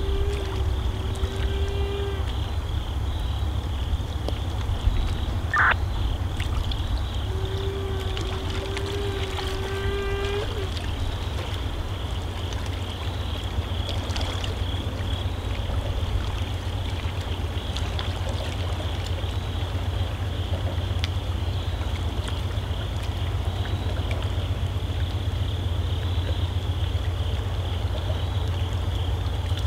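Steady outdoor ambience: a constant low rumble with a steady high hiss. Twice, about the start and again about 8 seconds in, a distant held tone sounds for two to three seconds, and a short rising chirp comes between them.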